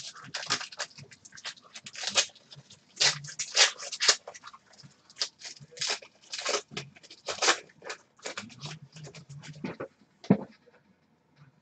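A card pack wrapper crackling and tearing as it is opened by hand, then cards being handled: a quick run of short, crisp rustles that dies away about ten seconds in.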